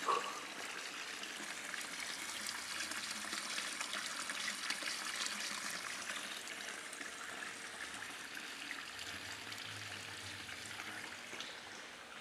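Water trickling steadily in a marble church font, an even, continuous hiss, with a short bump at the very start.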